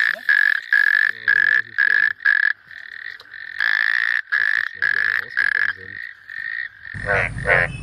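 A frog calling in quick runs of short, high, evenly pitched notes, about three a second, with a short pause in the middle. About seven seconds in, a different, rougher and warbling call takes over with a low hum behind it.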